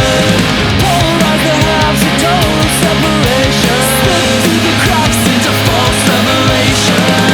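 Instrumental passage of melodic punk rock: a distorted electric guitar band with a lead melody line over bass and drums with crashing cymbals, and no vocals.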